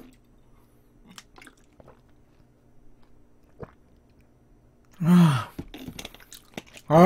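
A man's short groan with a falling pitch about five seconds in, and a louder vocal outburst starting right at the end. Before these there are only a few faint clicks and mouth sounds.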